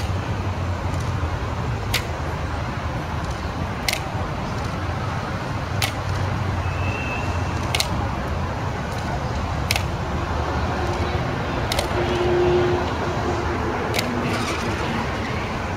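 Sharp clacks of Evzone guards' nailed tsarouchi shoes striking the marble pavement in a slow ceremonial march, about one every two seconds, seven in all, over steady city traffic noise.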